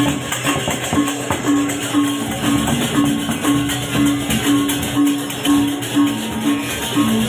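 Balinese gamelan music playing: a metal-keyed pattern alternating between two notes at an even pulse, over a steady high rattle.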